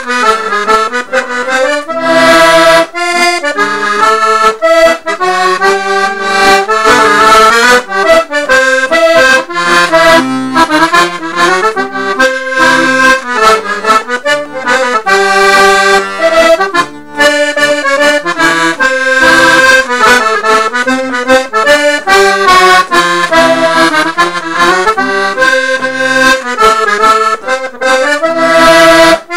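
Manfrini three-row B/C/C# button accordion playing a barndance tune, a quick, unbroken run of notes.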